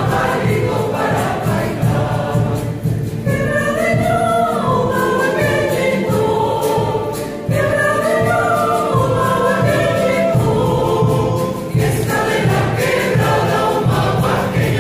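Choir singing a carnavalito, an Andean folk dance song, with guitar and a drum keeping a steady beat beneath the voices.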